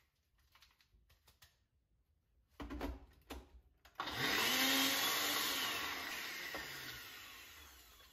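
Personal bullet blender blitzing biscuits into fine crumbs. A few knocks come first, then the motor starts suddenly about four seconds in and runs loudly, fading gradually as its pitch drops near the end.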